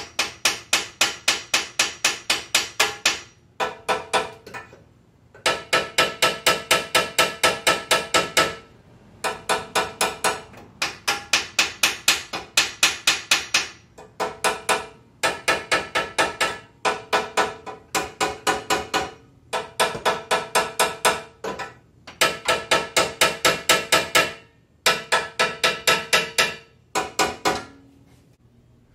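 Hammer blows on the stuck exhaust pipe of a 1993 Kawasaki Mule 500, coming in quick runs of about three or four strikes a second with short pauses between runs. Each strike rings with a metallic tone. The pipe is seized, and the hammering is the persuasion used to break it free.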